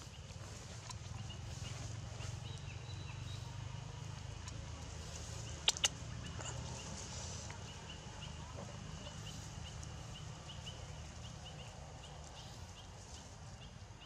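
Outdoor ambience with a steady low rumble and faint high chirps repeating at a regular pace. Two sharp clicks, close together, about six seconds in.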